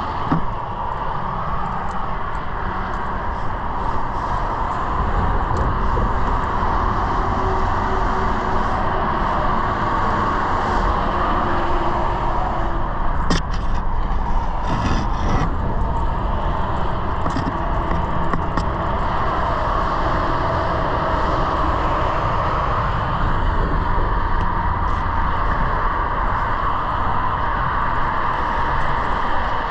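Steady traffic noise from highway cars and trucks, an even drone of tyres and engines. A few brief clicks come about halfway through.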